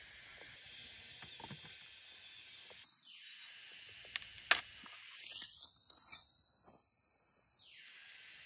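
Corn plants being handled: leaves and husks rustling with scattered small clicks, and one sharp snap about halfway through, as an ear of sweet corn is broken or its husk torn open. A steady high hiss runs underneath.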